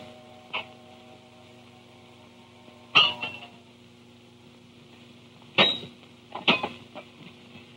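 A few sharp metallic clanks of hand tools striking railway track, the loudest about three seconds in with a brief ring after it, and two more close together near the end. Under them runs the steady hum of an old optical soundtrack.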